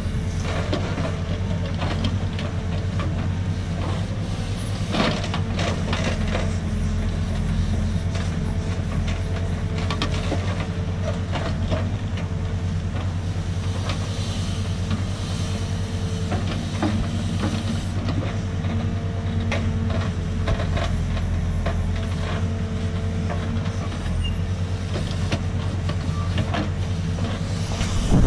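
Hidromek 102B backhoe loader's diesel engine running steadily under digging load as the backhoe arm excavates a trench, with a steady whine over the engine note and a few knocks.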